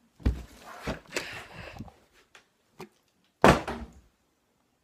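Rustling and knocks of movement and phone handling, then one loud thud about three and a half seconds in.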